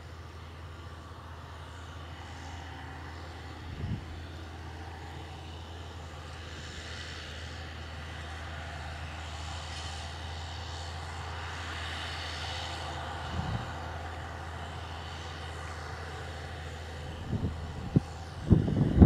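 Case IH Magnum 335 tractor's six-cylinder diesel running steadily under load while pulling a seed drill through the field, with a low drone that grows louder through the middle as the tractor approaches. A few loud low thumps near the end.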